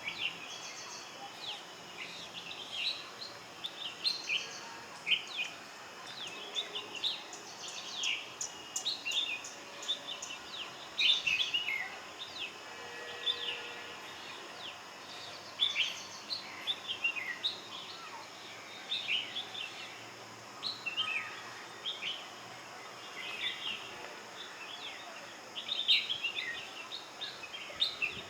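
Bulbuls calling back and forth with short, quick chirping notes in irregular clusters, a few seconds apart at most.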